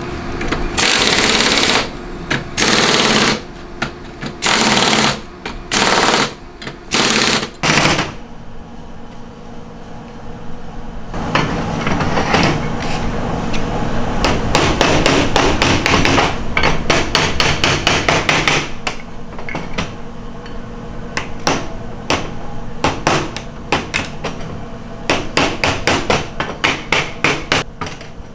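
Hammer blows on metal during motorcycle sprocket work. A few loud bursts of noise, each about a second long, come in the first eight seconds, then a fast run of rapid strikes, then separate blows a few times a second.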